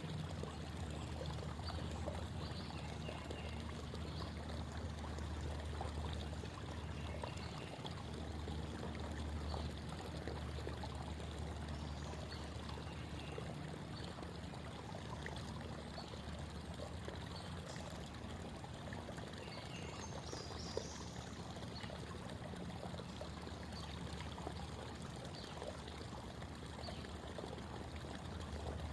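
Creek water babbling and trickling steadily over the stream bed.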